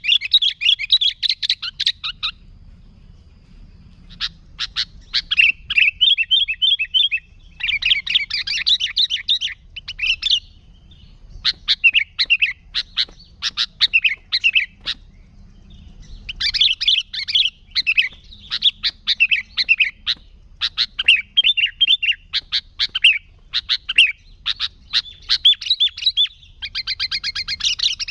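Sooty-headed bulbul (kutilang) singing: bursts of fast, chattering notes in phrases a few seconds long, with brief pauses between them.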